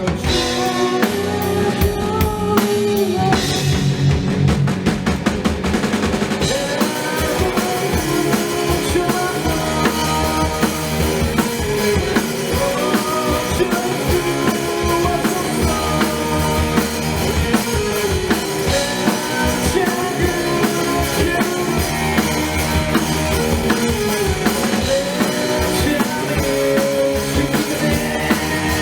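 Live rock band music with a prominent drum kit and guitar; the drumming is especially dense in the first few seconds.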